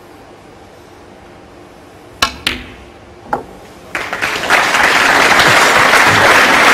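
Snooker cue tip striking the cue ball about two seconds in, a quick second click as the cue ball hits the blue, and a knock as the blue drops into a pocket just under a second later. From about four seconds, audience applause builds and carries on loudly.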